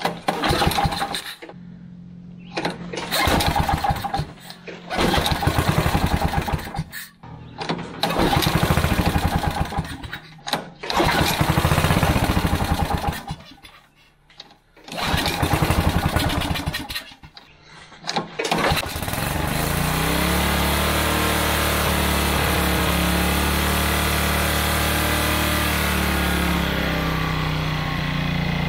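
Craftsman tiller's small engine being pull-started on a freshly rebuilt carburetor: it fires and runs for a second or two, then dies, several times over. About two-thirds of the way in it catches and keeps running, its speed wandering up and down before it settles, with the governor still not sorted out.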